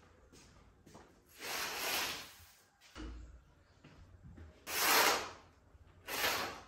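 A door being opened and a sheer curtain brushed aside: a soft knock about three seconds in and three short rustling swishes.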